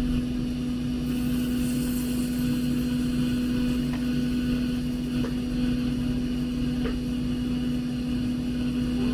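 Steady electrical hum with a fan-like whir from running workbench equipment, with a few faint light taps of tools on the board.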